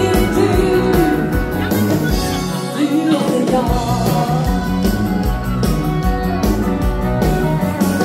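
Live dansband playing an up-tempo rock-and-roll number with a singer over a steady drum beat; the bass drops out briefly about three seconds in.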